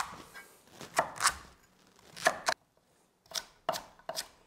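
Chef's knife cutting Hokkaido pumpkin into rough cubes on a wooden cutting board: short, uneven knocks of the blade going through the firm flesh onto the board, about two a second.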